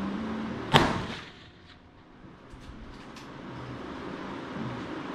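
A single gunshot about three quarters of a second in, sharp with a short ringing tail, followed by a few faint clicks.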